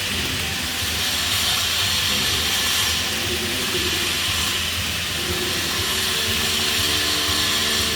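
Flux-cored arc welding on pipe: the arc gives a steady crackling hiss.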